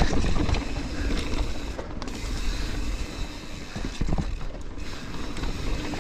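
YT Capra full-suspension mountain bike descending rough singletrack at speed: a continuous low rumble of tyres over dirt, roots and rocks, broken by frequent knocks and rattles as the bike hits bumps.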